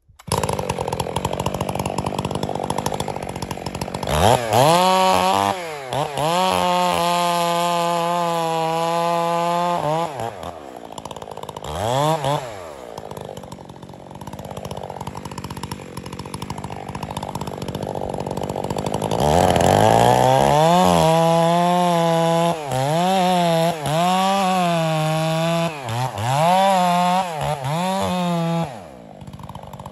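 Stihl 661 chainsaw with a 36-inch bar, idling and then revved hard for several seconds, settling back to idle with one brief blip. From about twenty seconds in it runs at high revs with repeated short dips in pitch as it cuts into the base of a large pine, dropping back to idle just before the end.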